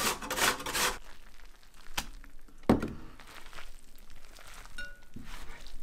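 Raw potato being rubbed down a steel box grater, a few quick rasping strokes in the first second. About two seconds in there is a sharp click, then a louder knock.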